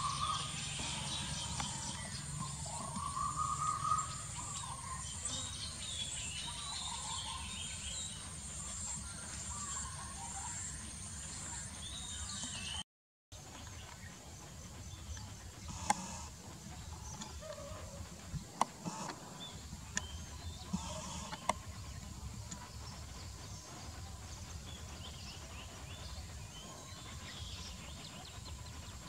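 Outdoor rural ambience: birds chirping over a steady high-pitched drone. After a brief cutout about halfway through, the background is quieter, with a few sharp clicks.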